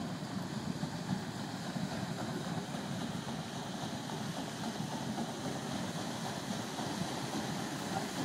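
Paddle steamer Waverley close alongside: a steady rush of water churned by its paddle wheels.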